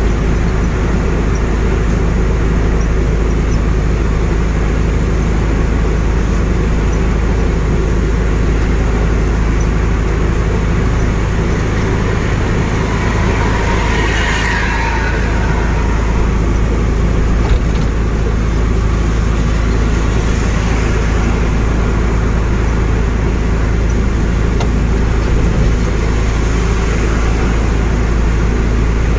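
Steady low drone of a truck's engine and tyre noise heard inside the cab on a rain-soaked highway. About halfway through, a bus passing close alongside adds a brief swell of rushing spray noise that rises and fades.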